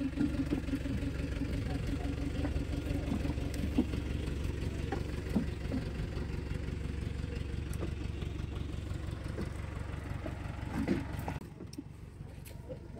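An engine running steadily, with a few light clicks over it; the engine sound drops away abruptly about eleven seconds in.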